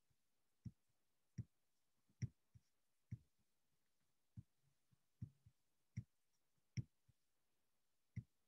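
Computer mouse clicking: about ten short single clicks at irregular intervals, with near silence between them.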